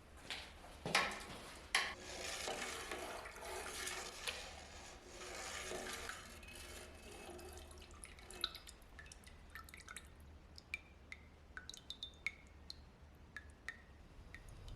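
Liquid running or splashing for a few seconds, then drops falling one by one as small ticks and plinks.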